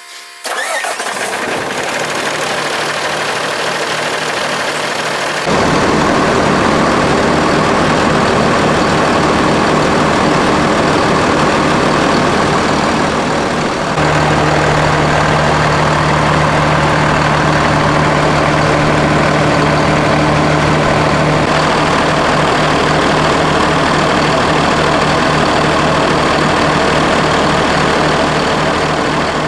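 Diesel engine of a portable-toilet service truck starting about half a second in, then idling steadily. The sound gets louder in two steps, about five seconds in and again about fourteen seconds in.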